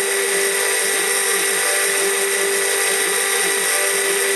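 CNC mill spindle running with a steady high whine as its small bit mills copper off a copper-clad PCB blank. Underneath, short rising-and-falling tones repeat about twice a second as the axis motors move the cutter along the board.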